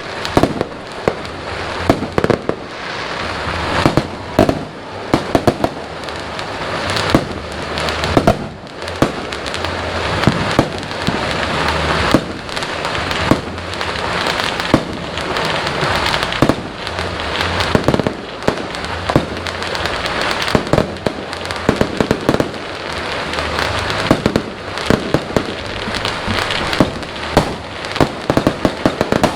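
Fireworks going off without a break: a dense, continuous crackle with many sharp bangs, several a second at times.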